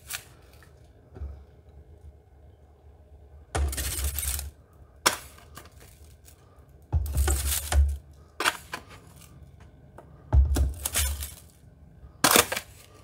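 Metal spoon scooping damp play sand from a plastic tub and tipping it into a 3D-printed enclosure: short scraping, gritty bursts every second or two, about six in all.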